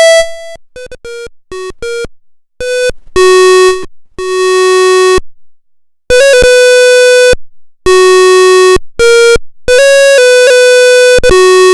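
Homemade electronic tone circuit playing a simple melody of buzzy, bright electronic notes, a few quick short notes first and then longer held ones, each starting and stopping abruptly.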